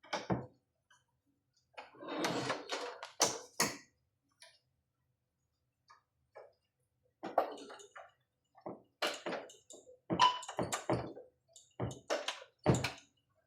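Irregular clicks, knocks and rustling from hands handling the plastic housing and circuit boards of an opened patient monitor during disassembly, with a denser run of knocks in the second half.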